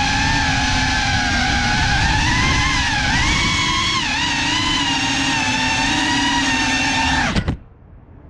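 FPV quadcopter's motors and propellers whining, the pitch wavering up and down with the throttle. The whine stops abruptly near the end as the drone comes down on the rooftop.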